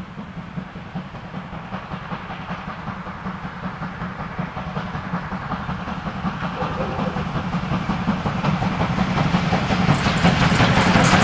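DR class 50.35 steam locomotive 50 3708 hauling passenger coaches toward the listener, its exhaust chuffing and growing steadily louder as it approaches. Near the end the sharp clatter of wheels on the rails joins in as it draws close.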